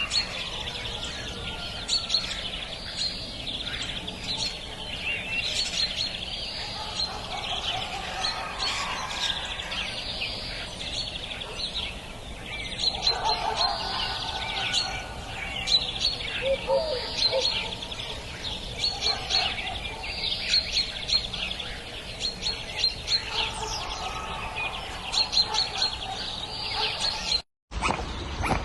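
Birds chirping continuously, with many short high chirps overlapping and a few lower calls among them. The sound cuts out for an instant near the end.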